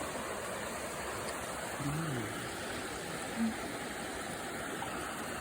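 Small forest stream running over rocks: a steady, even rushing of water. A brief faint voice is heard about two seconds in.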